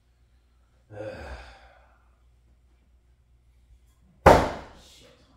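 A throwing hatchet hits the wooden plank target with one loud, sharp thunk about four seconds in, ringing away briefly. Before it, about a second in, a long breathy sigh.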